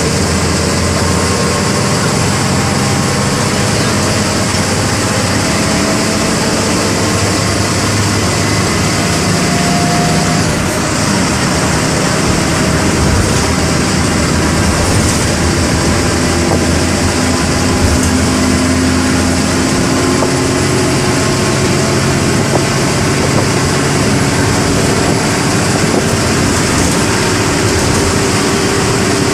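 MWM 6.12 TCE six-cylinder inline turbodiesel of a Volksbus 17-230 EOD bus running under way, heard from on board, its engine note slowly rising and falling.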